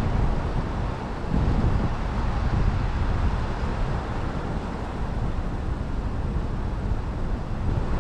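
Steady low rumble of road traffic noise, with uneven gusts of wind on the microphone, while the vehicles sit stopped at a red light.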